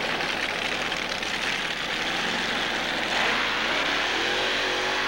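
Modified pulling tractor's engine running hard at the start line, then rising in pitch and getting louder about three seconds in as the tractor launches the pull against the weight-transfer sled.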